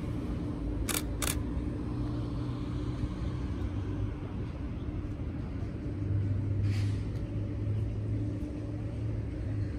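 A vehicle engine idling with a steady low hum. Two sharp clicks come about a second in.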